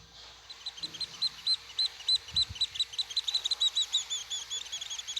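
A bird singing: a series of high, clear chirps, spaced apart at first, that quicken into a fast run of notes from about three and a half seconds in.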